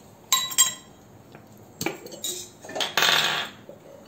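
Stainless steel kitchenware and a spoon clinking and scraping: a few sharp ringing clinks, then a longer scraping rattle about three seconds in, as a spice is scooped from a steel container.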